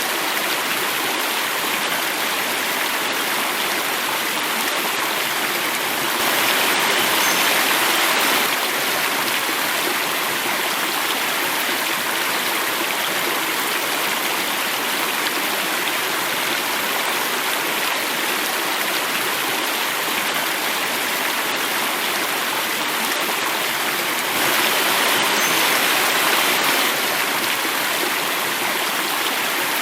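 Running water flowing and falling in a small cascade, a steady rushing splash. It swells a little louder twice for a couple of seconds.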